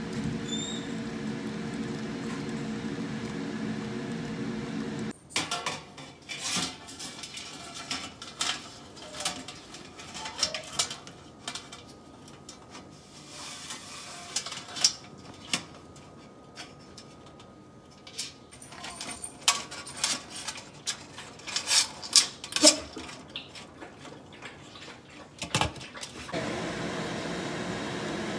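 Irregular metal clattering and knocking of a stainless steel steamer pot, its lid and its tongs as live lobsters and crabs are loaded in. A steady machine hum fills the opening seconds and comes back near the end.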